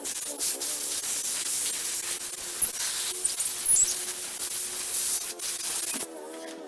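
Rubber handlebar grip being twisted and worked onto the scooter's throttle tube: a continuous scraping rub of rubber against the sleeve that eases off near the end.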